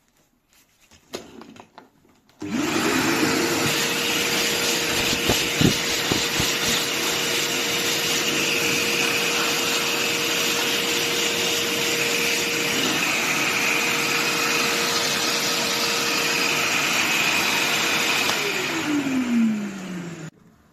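Kärcher WD 4 S wet/dry vacuum cleaner switched on about two and a half seconds in. Its motor spins up quickly to a steady whine over a rush of air and runs evenly. Near the end it is switched off, and the whine falls in pitch as the motor winds down. A few light clicks come before it starts, and a brief knock comes a few seconds into the run.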